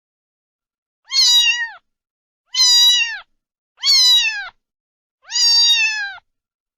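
A cat meowing four times, a little over a second apart, each meow a drawn-out call that drops in pitch at the end.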